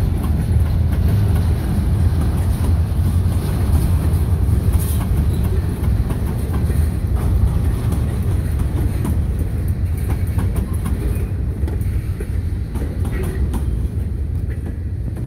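Steel gondola freight cars rolling slowly past on the rails: a steady low rumble of wheels with scattered clicks and clanks, fading as the last car goes by near the end.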